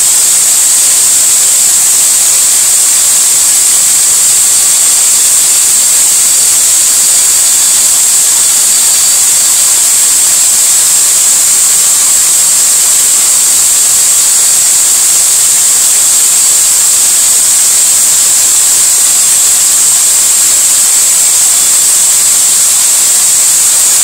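High-powered corded drill running steadily at speed, spinning an engine valve while a razor blade scrapes the carbon off it: a loud, even hiss with no pauses.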